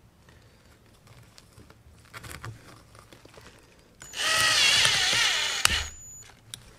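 Cordless drill with a #15 bit in a carburetor's fuel pickup hole starts about four seconds in and runs briefly, its motor whine wavering in pitch, then stops. The drill is left on a clutch setting rather than the drill setting, so the bit is not cutting properly.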